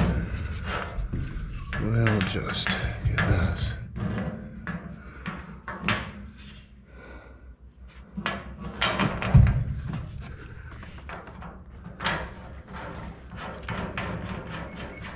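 Irregular knocks, clicks and scraping as a steel gas pipe, its union and hand tools are handled against wooden joists, with gloved hands rubbing and shuffling between the knocks.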